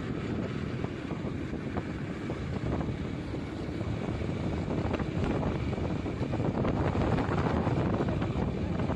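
Steady noise of a vehicle driving along a road, with wind buffeting the microphone.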